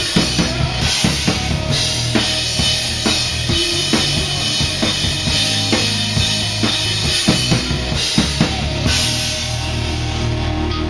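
Rock drum kit played in a steady groove: bass drum and snare hits with crash cymbals splashing a few times. The drumming thins out near the end while the steady backing carries on.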